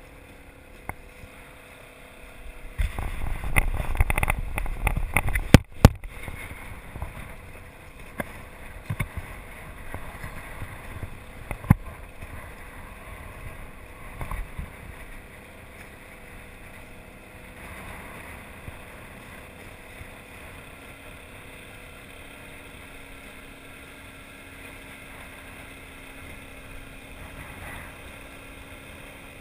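Inflatable boat under way on choppy water: wind and water noise over a low steady hum. It is loudest and roughest about three to six seconds in, with a few sharp knocks then and a little later.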